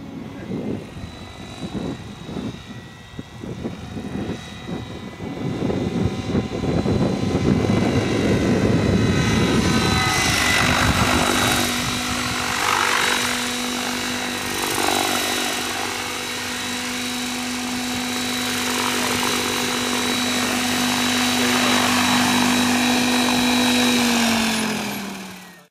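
Electric Henseleit TDR model helicopter with a Kontronik Pyro 700 motor and 710 mm carbon blades. A fluttering rush of rotor blades grows louder as it comes down and in. From about ten seconds it settles into a steady, high motor-and-rotor whine while it hovers and lands. Near the end the whine slides down in pitch as the rotor starts to spool down, then the sound fades out.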